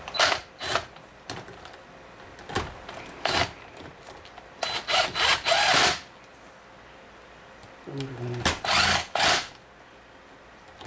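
A cordless driver with a socket on an extension spins down the cylinder head bolts of a 1988 Evinrude 55 hp outboard, snugging them before torquing. It runs in short bursts, several in a row, the longest about a second and a half midway.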